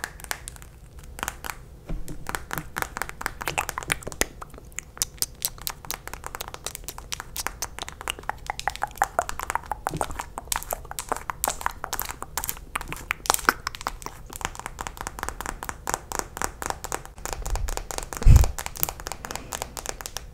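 Fast tapping of long acrylic nails on a plastic lip gloss tube held right at the microphone: a dense, quick run of clicks, with a dull thump near the end.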